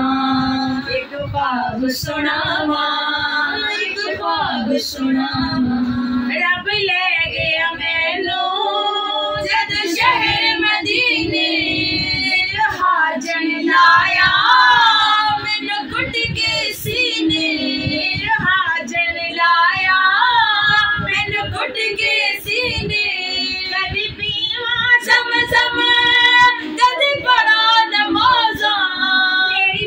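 Female voices singing a naat, a devotional song in praise of the Prophet, with continuous sung lines.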